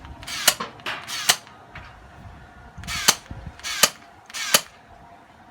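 Gel blaster firing single shots: five sharp cracks, two about a second apart, then a pause of about two seconds, then three more evenly spaced.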